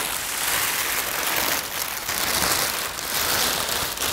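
Clear plastic bags crinkling and rustling as they are pulled up and off two wooden tower loudspeakers.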